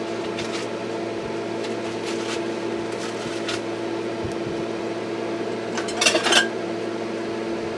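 Felt-tip marker scratching on paper in a few short strokes, with a louder cluster of scratches and clicks about six seconds in, over a steady machine hum.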